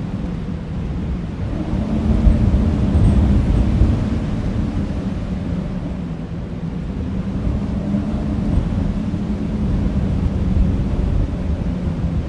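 Wind blowing across a field, a low rumbling rush that swells in gusts, loudest about two to four seconds in.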